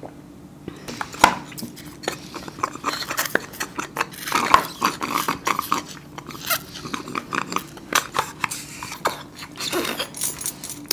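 Two people slurping and sucking mango drink through straws from small juice cartons, with the cartons crinkling as they are squeezed and some gulping: an irregular run of wet sucks, clicks and crackles, busiest about halfway through.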